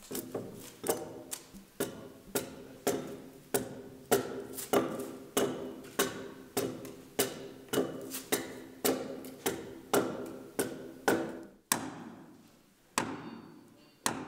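Axe hewing the side of a squared log beam: steady chopping strokes, about one and a half a second, each a sharp knock with a short ring through the timber. The strokes stop a little after three-quarters of the way through, and a couple of single knocks follow near the end.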